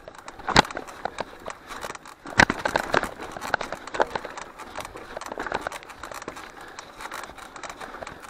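Mountain bike jolting over rough, slippery trail ground: a continuous irregular rattle and crackle of small knocks, with two sharp bangs from hard bumps, the first under a second in and the loudest about two and a half seconds in.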